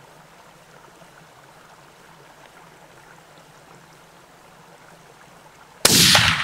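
A single rifle shot near the end, sudden and loud, its report ringing on and fading as it echoes off the hillside. Before it there is only a faint steady hiss.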